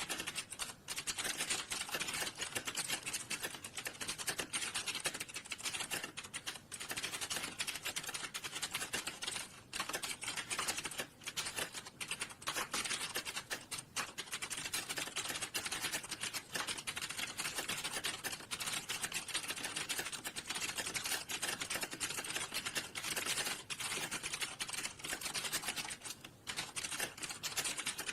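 Rapid, continuous typing on a computer keyboard, with a few brief pauses.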